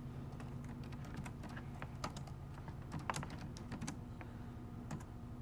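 Computer keyboard keys being typed in short irregular runs of clicks, entering a postcode, over a low steady hum.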